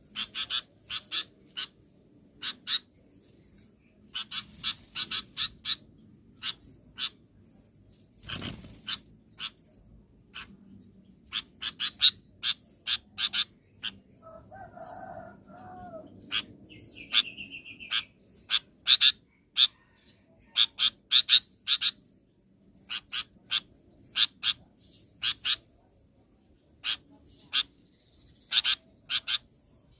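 Sooty-headed bulbul (kutilang) calling: quick clusters of short, sharp chirps repeated throughout, with a lower, rougher call from another bird about halfway through.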